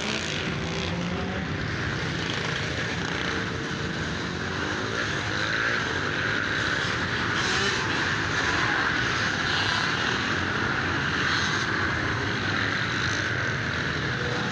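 Many dirt bike engines running together in a dense, continuous buzz, with several engines revving up and down at once.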